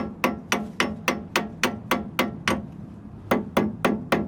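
Light, quick hammer taps on a heated, seized brake caliper bleed screw, about four a second, with a short pause past the middle. Each tap rings slightly on the metal as the screw is jarred to help free it.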